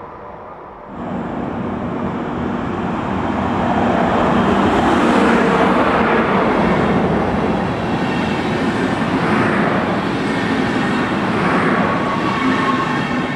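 Deutsche Bahn Intercity passenger coaches rolling past on the rails: a steady rush of wheel-on-rail noise that rises sharply about a second in and swells again as further coaches go by.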